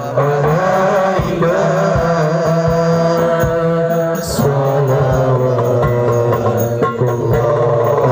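Shalawat devotional song: a man's voice singing long, ornamented held notes through a microphone and loudspeakers, over a steady low backing drone and hand-drum beats.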